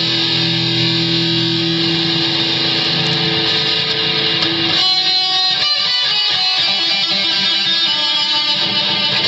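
Electric guitar played through a Boss ME-20 multi-effects pedal, with held low notes for the first half. About five seconds in, the low notes drop away and higher, choppier notes take over.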